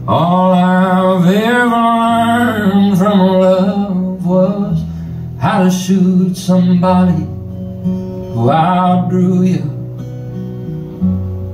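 A man singing slow, held phrases over a strummed acoustic guitar. The voice pauses between phrases, and the last second or so is guitar alone.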